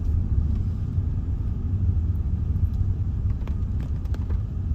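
Car driving along, a steady low rumble of engine and road noise heard from inside the cabin, with a few faint ticks in the second half.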